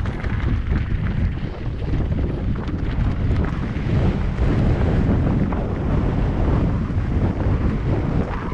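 Wind buffeting the microphone of a mountain biker's camera while riding a dirt singletrack, with small clicks and rattles from the bike on rough ground.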